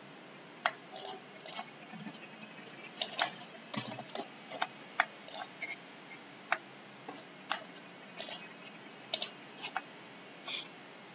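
Computer mouse clicking, about twenty sharp, irregular clicks, some in quick pairs like double-clicks.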